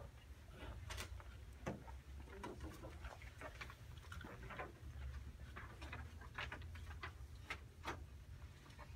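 Faint room noise: a low steady hum with scattered small clicks and rustles.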